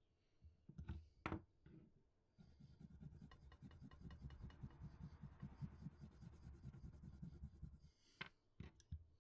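Steel chisel held in a honing guide being worked on a leather strop: a soft, continuous rubbing from about two seconds in until near the end, with a couple of light knocks before and after. This is the final stropping stage that brings the edge to full sharpness.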